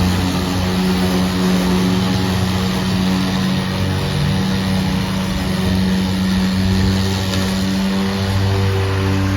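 EGO battery-powered lawn mower running steadily: a steady electric hum from the motor and spinning blade over an even hiss.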